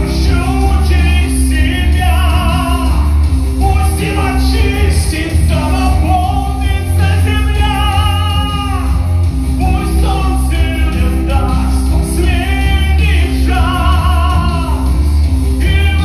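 A man singing through a handheld microphone over an instrumental accompaniment with a steady bass. He sings long held notes with vibrato.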